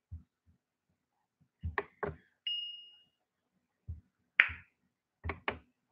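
A few scattered knocks and clicks of handling, with a short, high, steady ping tone about two and a half seconds in.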